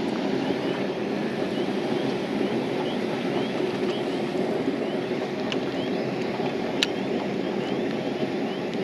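Steady rushing outdoor noise, with a faint high chirp repeating a few times a second and a single sharp click about two-thirds of the way through.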